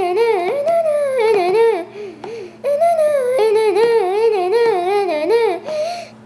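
A high voice singing a wordless tune that rises and falls in quick, repeated turns, with a short break about two seconds in.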